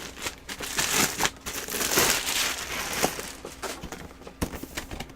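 Packaging crinkling and rustling as a boxed keyboard is handled, with irregular crackles and small clicks.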